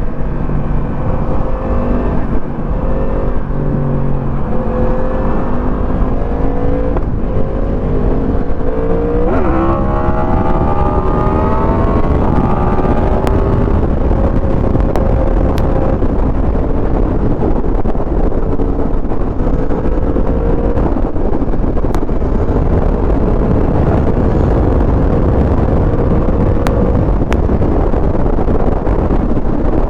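Motorcycle engine running while riding, with a heavy low rush of wind on the microphone. The engine note dips in the first few seconds, climbs sharply as it accelerates about nine seconds in, then holds a steady cruising pitch.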